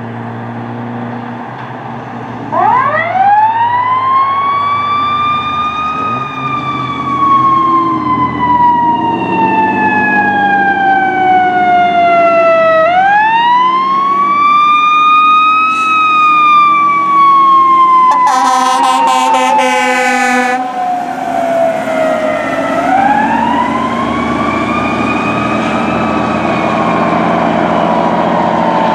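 Fire truck's Federal Signal eQ2B electronic siren giving three long wails. Each one winds up quickly, then coasts slowly down, copying a mechanical siren, over the truck's engine. About 18 seconds in, the air horn blasts for about two and a half seconds.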